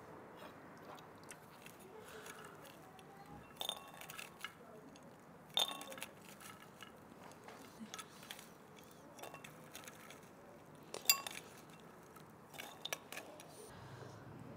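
Kitchenware clinking: scattered light clinks and knocks of utensils against dishes, the sharpest about eleven seconds in.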